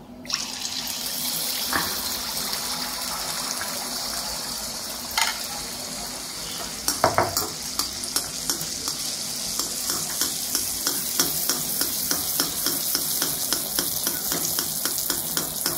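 A ladleful of neyyappam batter hits hot oil in a deep kadai, setting off a sudden loud sizzle. The frying hiss carries on with popping crackles that grow denser in the second half, with a few louder knocks in the first half.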